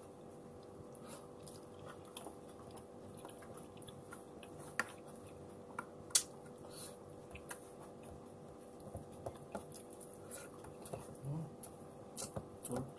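Close eating sounds: chewing and mouth smacks with scattered small clicks as fried dried milkfish and rice are picked apart and eaten by hand, over a faint steady hum. Two sharper clicks come about five and six seconds in, and the small clicks grow busier near the end.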